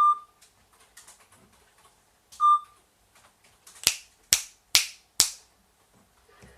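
Two short electronic beeps from the Play Smart 7497 interactive toy duckling, one at the start and one about two and a half seconds in, then four sharp clicks about half a second apart.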